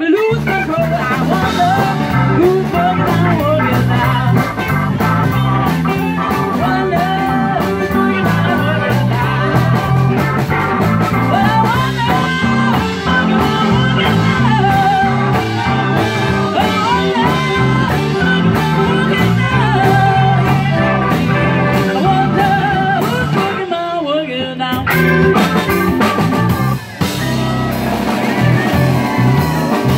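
Live band playing a song with a woman singing lead into a microphone, backed by two fiddles, acoustic guitars, a keyboard and a drum kit.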